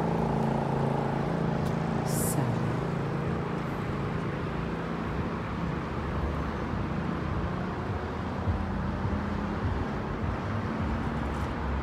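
Steady outdoor traffic noise from road vehicles, with a low engine hum in the first few seconds that fades.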